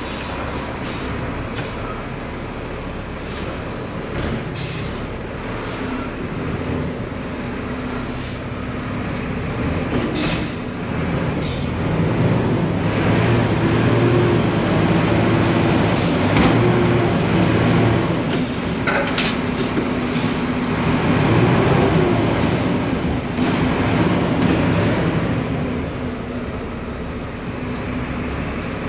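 Diesel engine of a Mack front-loader garbage truck revving under hydraulic load as its forks lift a dumpster over the cab to empty it, with sharp knocks and clanks along the way. The engine grows louder through the middle, its pitch rising and falling, then settles back.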